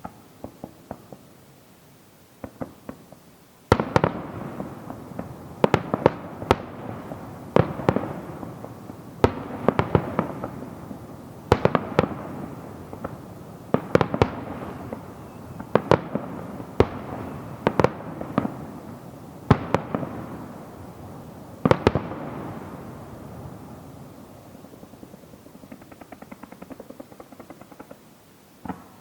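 Fireworks display: a few small pops, then aerial shells bursting with sharp bangs about every two seconds, crackling and echoing between them. After the last big bang the bursts stop and only faint crackling is left.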